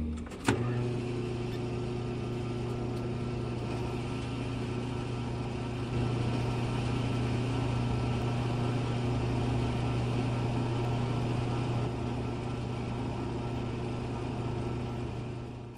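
A small motor running with a steady hum, a little louder for a few seconds in the middle, with a single click about half a second in.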